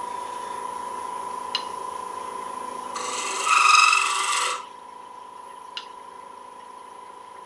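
Wood lathe running with a steady whine while a turning tool cuts the spinning wet cherry goblet. About three seconds in, the tool bites in for a second and a half, a loud rasping scrape with a ringing squeal from the thin, flexing wood.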